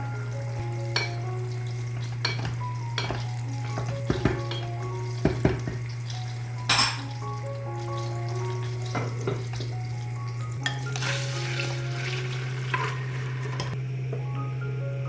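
Food sizzling in a pan, with a utensil knocking against the pan a dozen times, the sizzle swelling about eleven seconds in. Soft background music of short mallet-like notes plays underneath.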